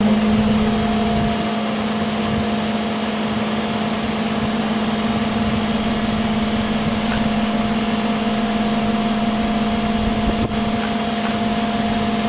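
Truck-mounted crane's diesel engine running at a steady speed, a constant hum while the crane holds its load in the air.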